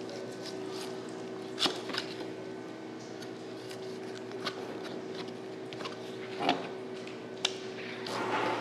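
A large chef's knife cuts through raw shark meat, with a few sharp knocks as the blade strikes the wooden chopping board. Near the end comes a rougher scraping as the blade works across the board. A steady hum runs underneath.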